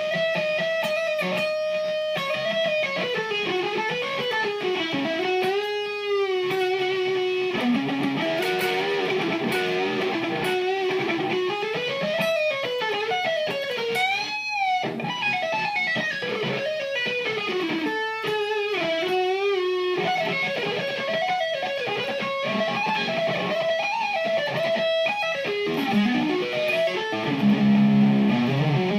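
Electric guitar playing a heavy-metal lead solo at slowed-down speed for learning: runs of notes climbing and falling, held notes with wide vibrato, and a louder, lower passage near the end.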